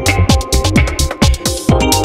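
Electronic dance music with a steady, fast kick-drum beat and crisp high hi-hat ticks over sustained synth notes.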